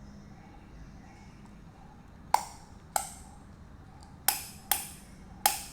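Five sharp metallic clicks, each with a brief ring, at uneven spacing from a little after two seconds in: the metal belt clip of a leather knife case being worked and snapping back.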